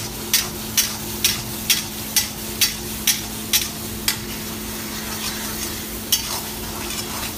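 Long metal spoon knocking and scraping against a black wok while stirring chana dal gravy, about two strokes a second, pausing about four seconds in, then a couple more strokes near the end. A steady low hum runs underneath.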